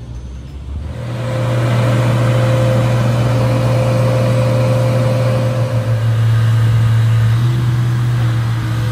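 Diesel engine of a 500-ton mobile boat hoist (travel lift) running under load as it carries a boat. It is a loud, steady drone that comes up about a second in.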